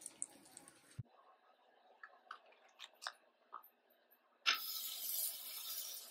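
Light crackling of oil in a frying pan, then a sudden loud sizzle about four and a half seconds in as enoki mushroom pancake batter is dropped into the hot oil, holding steady after.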